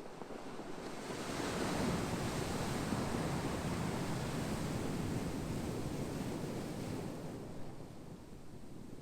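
Ocean waves breaking on a shore: a rush of surf that builds about a second in, holds, then washes away near the end.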